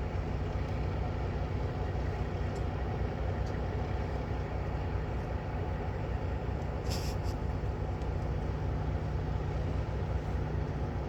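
Steady low drone of an idling diesel truck engine, with a few light clicks and a brief hiss about seven seconds in.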